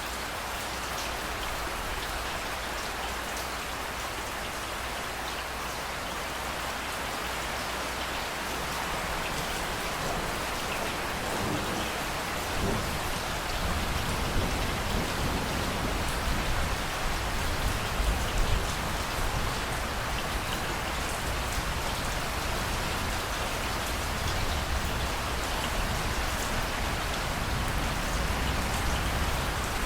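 Steady heavy rain pouring down, with a low thunder rumble that rolls in about halfway through, swells for several seconds and keeps grumbling underneath the rain.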